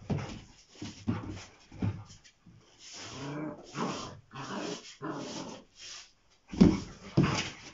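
Rottweilers, an adult and a puppy, vocalising at each other: a run of short yaps, then several drawn-out whining calls, and two louder, deeper calls near the end.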